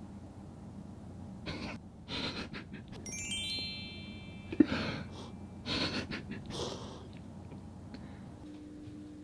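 A sparkly chime sound effect, a quick cascade of bell-like tones, about three seconds in, among short breathy rustling noises and one sharp click. Soft music begins near the end.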